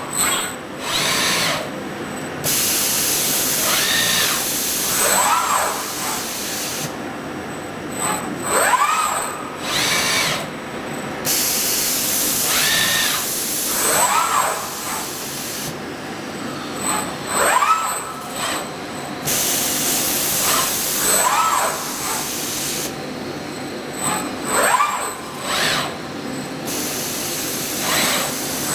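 Industrial pick-and-place robot arm's servo drives whining, rising and falling in pitch again and again as the arm moves. Four times a loud hiss of air from the vacuum gripper comes on for several seconds and cuts off sharply, as it grips and releases fibre-fabric plies.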